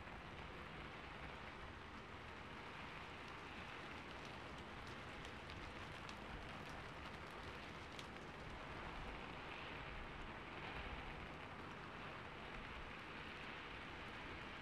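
Steady rain ambience, an even faint hiss of rainfall. A few light clicks of laptop keys come about halfway through.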